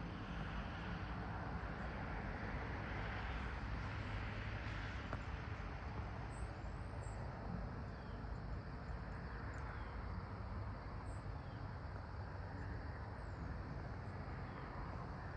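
Rural early-morning ambience: a steady low rumble of distant road traffic that swells gently now and then, with a few faint, short, high bird chirps scattered through.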